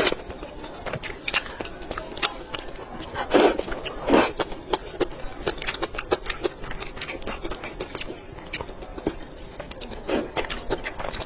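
A person eating close to the microphone: irregular wet chewing and mouth clicks, with a couple of louder bites about three and four seconds in.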